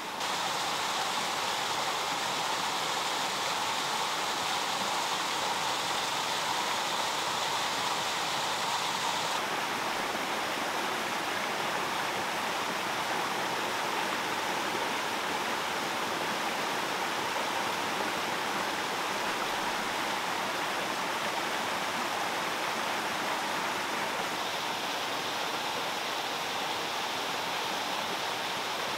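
Steady rush of flowing water, slightly duller from about nine seconds in.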